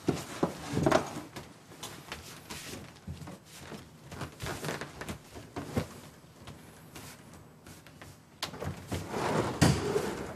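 Quilts and bedding rustling as they are folded and stacked on the floor, with scattered knocks and a cluster of louder clunks near the end.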